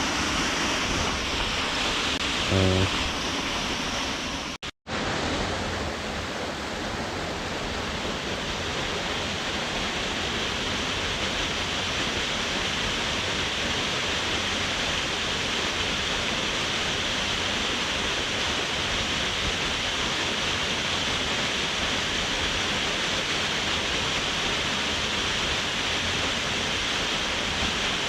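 Rushing water of a waterfall: a steady, even hiss of falling water, broken by a very brief gap in the sound about five seconds in.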